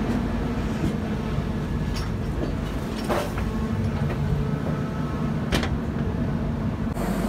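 Passenger train running along the track, heard from a coach's open doorway: a steady rumble of wheels on rail, with a few sharp clicks, the clearest about three seconds and five and a half seconds in.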